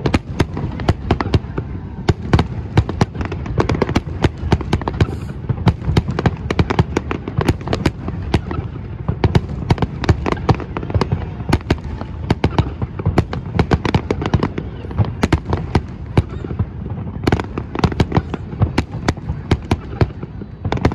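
Fireworks display: aerial shells bursting and crackling in a dense, unbroken barrage of sharp bangs, several a second.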